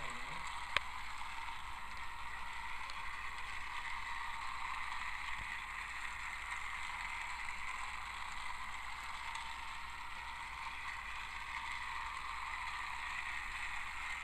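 Trackmaster Armored Thomas battery-powered toy train running: a steady whir of its small motor and gears, with a single sharp click just under a second in.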